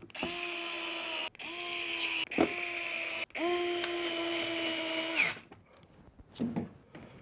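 Power screwdriver driving the mounting screws for the AMS Lite: three short whining runs, the last one the longest, with a click between the second and third.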